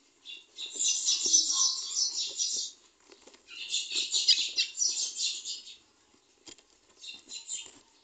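Pencil scratching on paper in drawing strokes: two runs of about two seconds each, then a few shorter strokes near the end.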